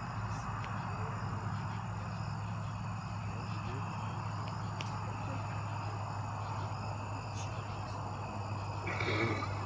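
A steady chorus of crickets and other insects over a constant low hum, with a brief louder sound near the end.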